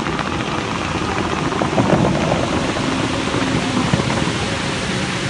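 Bellagio fountain's water jets shooting up and the spray falling back onto the lake, a steady rain-like rush of water that swells briefly about two seconds in.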